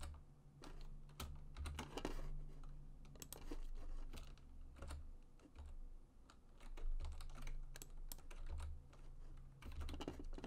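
Computer keyboard keys and mouse buttons clicking at an irregular pace, several quick presses at a time, as keyboard shortcuts are entered.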